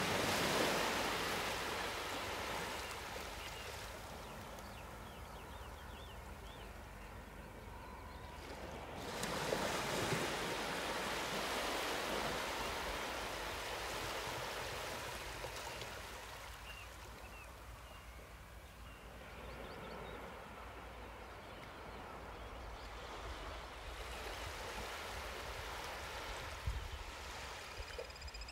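Sea waves washing on a shore: a steady rush of surf that swells sharply about nine seconds in, with a few faint bird chirps.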